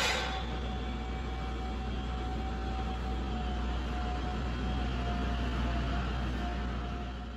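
Steady low rumble and hiss of construction-site room noise inside an unfinished building, with a thin steady whine throughout. A short click comes right at the start.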